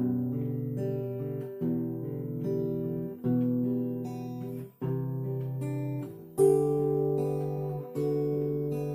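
Acoustic guitar strumming chords, with a new chord struck about every one and a half seconds.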